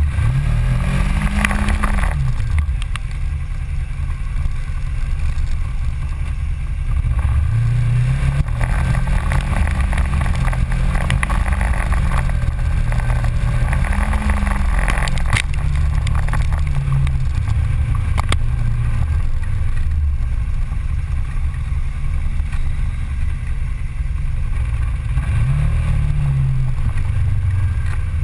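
Ranger side-by-side UTV engine running under way on a dirt trail, its pitch rising and falling as the throttle is worked, with tyre and chassis noise and a sharp knock about halfway through.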